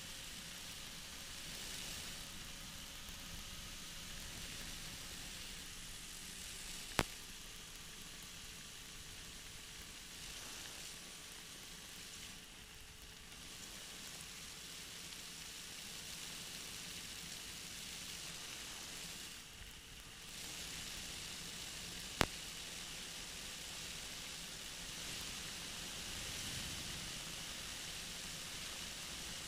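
Steady hiss of a flexwing microlight trike's cockpit audio on final approach, with a faint steady drone of its engine underneath, shifting slightly in pitch. Two single sharp clicks, about 7 and 22 seconds in.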